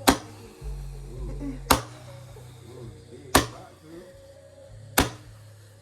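Roman candle firing: four sharp pops evenly spaced about a second and a half apart as it shoots its balls, with the last one near the end.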